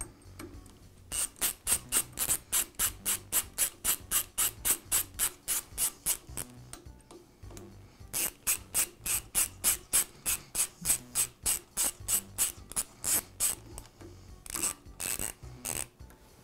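Small ratchet wrench clicking steadily, about four clicks a second, as it snugs the screws of the drill press's indicator block. Two long runs of clicking with a short pause between them, then a few more clicks near the end.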